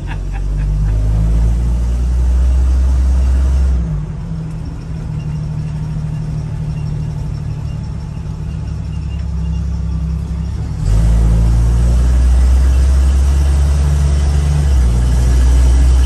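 1975 AM General DJ-5D postal Jeep's engine running while driving, heard from inside the cab as a steady low rumble. It falls away about four seconds in and comes back up sharply near eleven seconds. It is running smoothly, without the intermittent noise under load that the owner is trying to track down.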